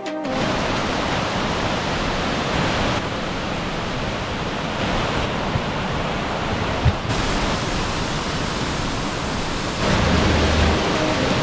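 Steady rushing of a waterfall, an even wash of falling water with no distinct events. Background music comes back in near the end.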